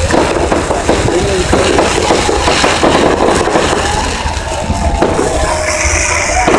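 Fireworks crackling and popping in a dense, continuous run of sharp cracks, with some voices faintly under it.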